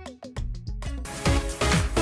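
Background music with a steady beat. Sparse notes and low drum hits give way to the full beat, which comes in about a second in.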